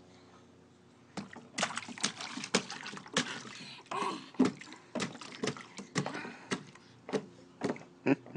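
A toddler's hands slapping and splashing in the water of a plastic dog water bowl. After a quiet first second comes a rapid, irregular run of splashes.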